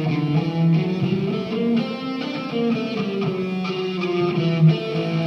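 Live music led by a guitar, played through an amplifier, picking a line of changing notes over a steady low note.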